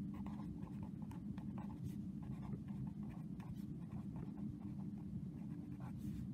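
Pen writing on lined notebook paper: a run of short, light scratching strokes as words are written out, over a steady low hum.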